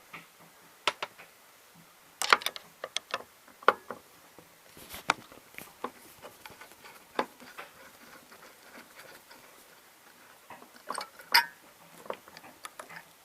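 Irregular metal clicks and clinks of flipper parts and tools being handled while a WPC pinball flipper assembly is taken apart, with a few louder knocks in two clusters, about two seconds in and near the end.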